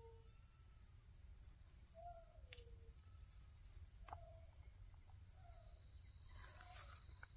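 A domestic cat meowing several times, in short calls with one longer meow falling in pitch about two seconds in.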